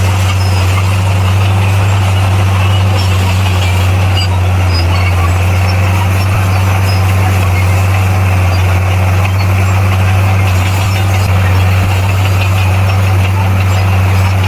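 Heavy earthmoving machine's diesel engine running steadily with a deep, even hum.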